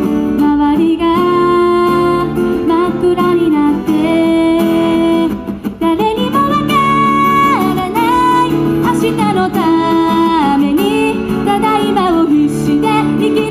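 A woman singing a song while playing an acoustic guitar. She briefly pauses between phrases about five and a half seconds in.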